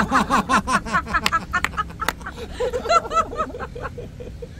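People laughing in quick rhythmic bursts, dying away near the end.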